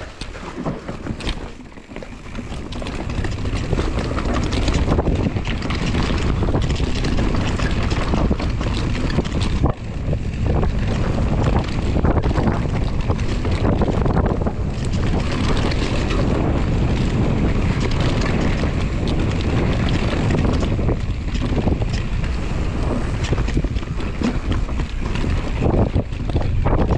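Mountain bike descending a dirt forest trail at speed: wind buffeting the camera microphone over the rumble of tyres on dirt, with the bike rattling and knocking over the rough ground. Softer at first, it builds to a steady loud rush about three seconds in.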